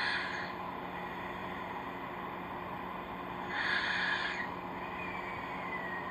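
A sleeping person's cartoon-like snore: a hissy, rasping breath about every three and a half seconds, followed by a thin whistle that slowly falls in pitch.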